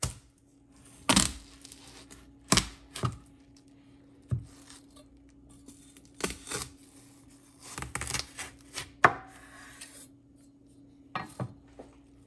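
Large kitchen knife cutting through a whole watermelon on a wooden cutting board: about a dozen irregular sharp knocks and thuds as the blade works through the rind and strikes the board.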